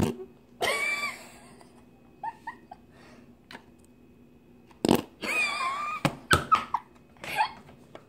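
Fart-noise slime squeezed in its plastic cup, pushing trapped air out in a string of fart noises: a short one about half a second in, a longer one around five seconds, then several short ones.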